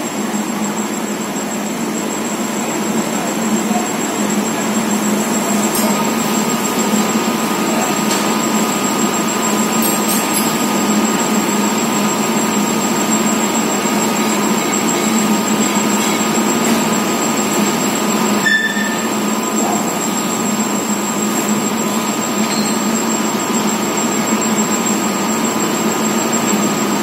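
Vertical turret lathe running steadily as its cutting tool turns a large forged steel ring: a continuous machine noise with a steady high whine. One sharp click about two-thirds of the way through.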